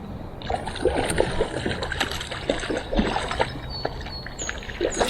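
Water splashing and sloshing in a creek, many quick irregular splashes starting about half a second in.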